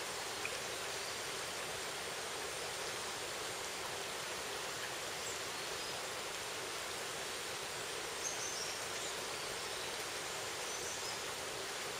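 Steady rush of a shallow forest stream, with a few faint, short high chirps over it.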